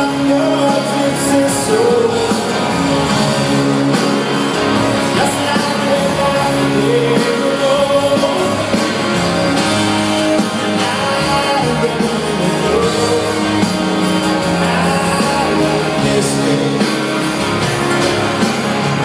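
Live country band playing in an arena, with fiddle and acoustic guitar over drums, heard from the upper seats.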